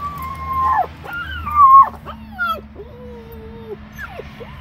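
Six-week-old Lycan Shepherd puppy howling: a string of high, short howls that bend in pitch and drop away at their ends, the loudest about a second and a half in, followed by a lower howl and a few brief ones near the end.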